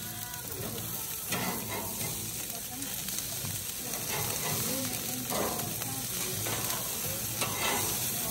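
Hamburger patties sizzling on a hot grill grate, with a few short scrapes of a metal spatula as they are turned over.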